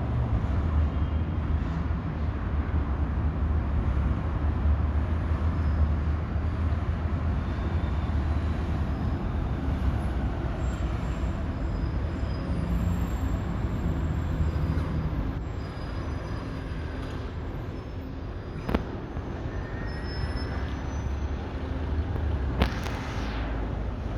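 Steady low rumbling background noise, with a sharp click about 19 seconds in and another near the end.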